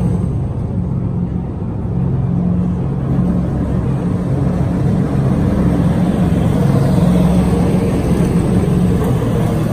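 NASCAR Cup Series stock car pushrod V8 engines running steadily at low revs as the cars roll slowly out of the garage.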